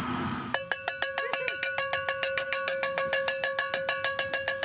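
A handheld cowbell rung fast and without a break, a rapid metallic clanging with a steady ring over it, starting about half a second in. It is rung to mark a tuna hooked on the line.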